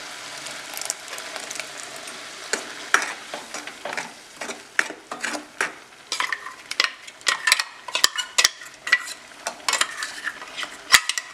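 Utensils scraping and knocking against a metal kadai as thick ground masala paste is stirred into frying vegetables, over a low steady sizzle. The scrapes and clicks start about two and a half seconds in and come thick and irregular after that.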